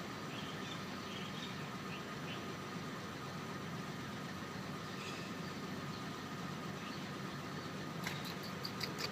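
A kitten's faint, short, high squeaky sounds while it eats, over a steady low background hum. A quick run of sharp clicks comes near the end.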